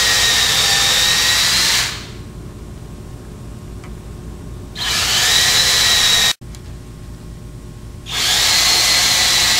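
DeWalt cordless drill boring pilot holes for #8 pan-head screws through a boat hatch frame into plywood. It runs in three spells of a second and a half to two seconds, stopping about two seconds in, running again in the middle and once more near the end, each time with a steady high motor whine that rises slightly as it spins up.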